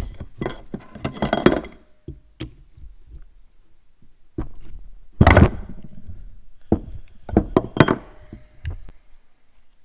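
Hand tools and metal parts clinking and knocking in irregular bursts, a few of them ringing briefly, as the carburetor and air cleaner are worked on.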